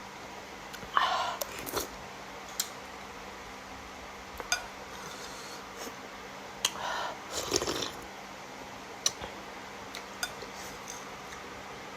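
Eating instant noodles from a bowl: a utensil clinks against the bowl several times as single sharp clicks, between short noisy bursts of eating sounds, over a steady low background hum.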